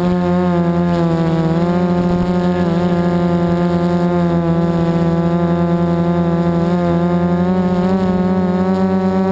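Multirotor drone's electric motors and APC 4.7x10 propellers in flight, a loud steady hum with many overtones whose pitch wavers slightly as the throttle is adjusted.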